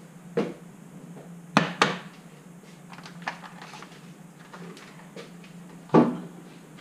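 A plate knocking down onto a glass-ceramic cooktop: a sharp knock, then a quick pair of knocks, scattered small clicks, and one more knock near the end, over a faint steady hum.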